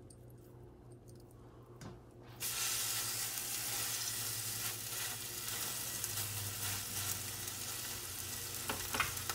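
Raw ground-beef burger patty sizzling in hot olive oil in a skillet on high heat. After a quiet start the sizzling begins suddenly about two and a half seconds in, as the patty goes into the pan, and then carries on steadily.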